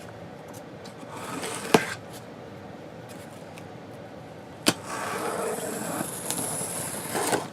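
A package being opened by hand: scraping and rustling of the packaging, with two sharp clicks, one near the start and one about halfway through, then a longer stretch of scraping near the end.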